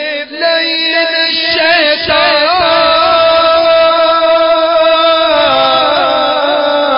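A man chanting a devotional Urdu manqabat. He draws the words out into wavering turns, with one long held note in the middle.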